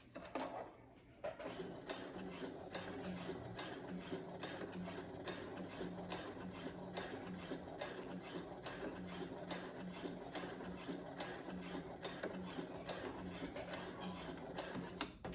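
Brother CS7000X computerized sewing machine stitching a seam at a steady pace, its needle strokes in an even, rapid rhythm. It starts about a second in and stops just before the end.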